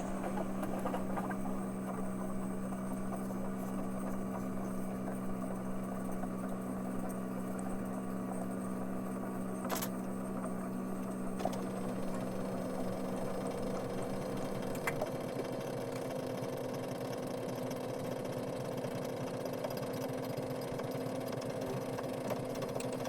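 Copy machine running: a steady mechanical whir of its motors and rollers, with a faint click about halfway through. About two-thirds of the way in the low hum drops out and a higher steady tone carries on.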